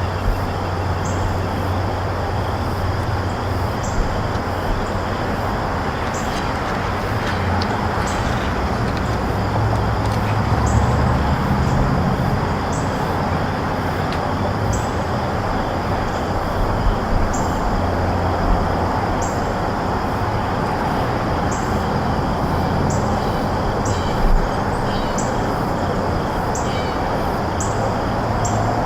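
Steady outdoor noise with a low rumble, and short high chirps repeating about once a second over a faint steady high whine.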